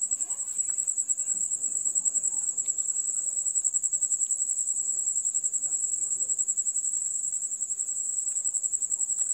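A cricket trilling steadily: one high, rapidly pulsing note that holds without a break.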